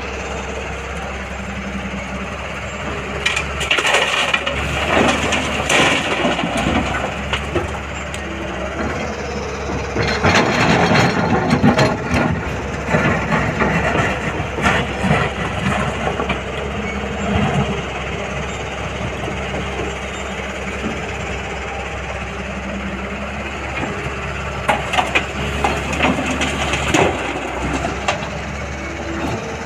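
Excavator's diesel engine running steadily under load, with irregular spells of crunching and scraping as soil is dug and dropped into a truck bed.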